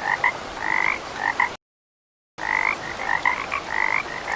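Recorded frog croaks: a quick run of short calls over a steady background hiss. The recording cuts off abruptly about a second and a half in, goes dead silent for nearly a second, then starts again just as abruptly.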